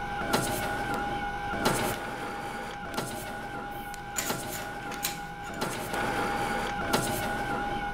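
Office photocopier running, with a steady whine and a sharp mechanical clack a little more than once a second as it cycles through copies.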